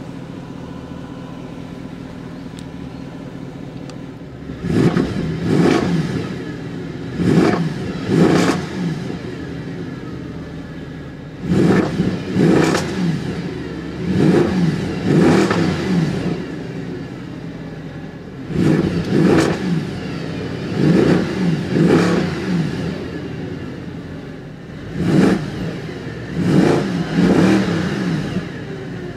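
Mercedes-AMG C63 Edition 507's naturally aspirated 6.2-litre V8 idling for about four seconds, then free-revving in Park in a series of short throttle blips, each rising and falling quickly, in clusters of two or three. Heard from inside the cabin.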